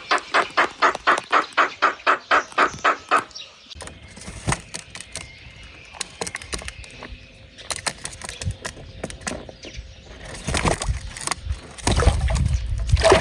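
Birds splashing and flapping in a small pool of water: a quick, even run of wing-beats in the water, about five or six a second, for the first three seconds. Then scattered small splashes, and loud splashing and flapping near the end.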